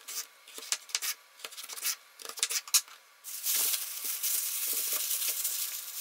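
A kitchen knife cutting a raw peeled potato on a wooden cutting board, a string of short clicks and knocks as the blade goes through and taps the board. About three seconds in, a thin plastic bag crinkles steadily as the potato wedges are packed into it.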